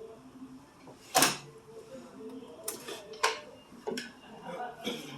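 A handful of sharp knocks and clatters, like hard objects being handled or set down. The loudest comes about a second in, followed by four lighter ones spread over the next few seconds.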